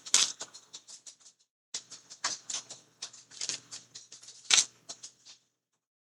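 Quick, irregular small clicks and taps from handling watercolor painting tools such as a brush and palette, with one louder tap about four and a half seconds in.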